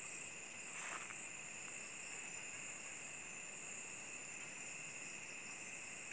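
Steady, high-pitched chorus of night insects, several pitches held without a break. There is a brief scratchy noise about a second in.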